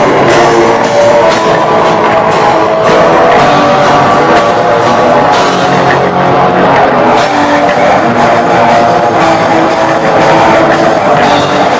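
Black metal band playing live at a steady, loud level: electric guitars, bass and drum kit together.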